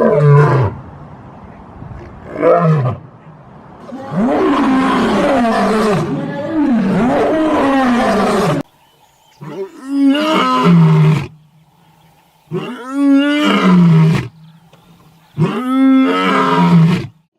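Lion roaring again and again, a series of deep rising-and-falling roars with short gaps between them, and several roars overlapping in a longer stretch near the middle.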